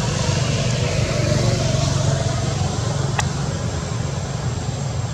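A motor vehicle engine running steadily as a low rumble that slowly gets quieter, with one short sharp click about three seconds in.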